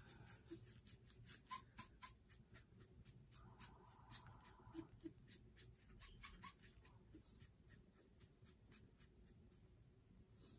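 Faint, quick strokes of a foam sponge brush rubbing across a wet metal tray as alcohol ink is dragged out into a wood-grain pattern. The strokes come a few each second and thin out near the end.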